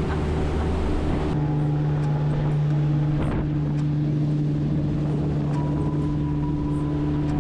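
Outboard motor on a small aluminium boat running steadily under way, its drone holding an even pitch throughout.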